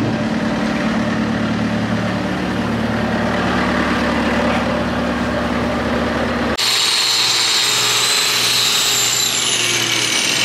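A machine's engine idles steadily. About six and a half seconds in, the sound cuts to the high whine of an angle grinder working on a large pulling-tractor tire, its pitch sagging near the end.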